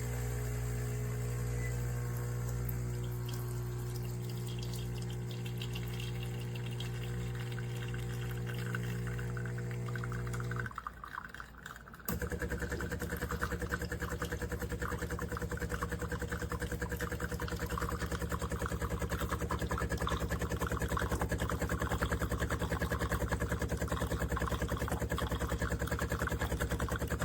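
De'Longhi La Specialista Arte Evo espresso machine running: a steady motor hum that stops about eleven seconds in. A second later a louder, rapidly pulsing buzz starts, like a vibration pump pushing water through.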